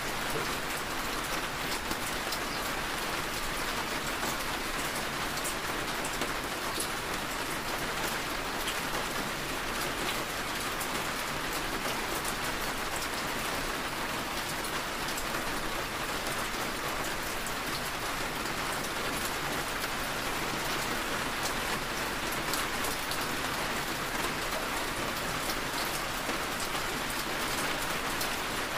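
Steady rain falling on a car's windshield and roof, heard from inside the cabin: a dense, even hiss with many scattered sharp drop ticks.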